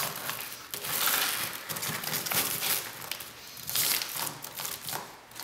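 Flexible 4-inch aluminum foil duct crinkling and crackling in irregular rustles as it is pushed and twisted onto the round intake of a dust collector.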